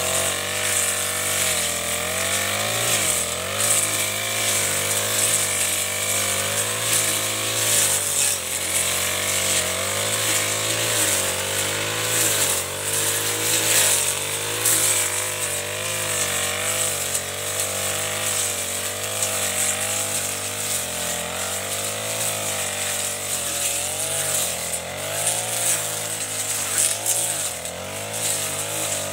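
Backpack four-stroke brush cutter with a Chinese-made Honda-type engine, running at high speed while cutting tall grass. Its pitch wavers up and down as the blade swings through the grass and takes load.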